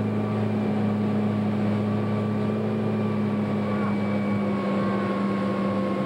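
Motorboat engine running steadily at towing speed, a constant even drone, over the rushing water of the wake.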